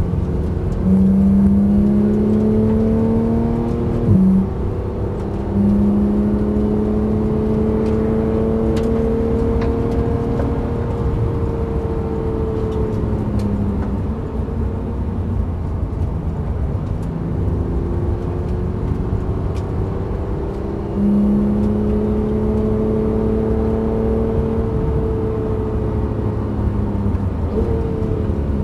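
Porsche 911 GT3 coasting at track speed with its engine out of fuel and not pulling: mostly wind and tyre noise in the cabin. A steady whine comes in and drops out three times.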